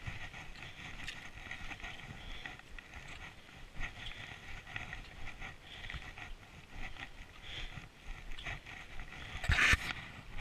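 Footsteps crunching on packed snow, with trekking poles planted alongside, in an uneven walking rhythm. One louder scrape near the end.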